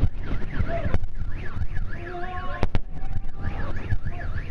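Car alarm wailing in a fast up-and-down warble, set off by the meteor's shock wave, with a low rumble underneath and two sharp cracks a little past halfway.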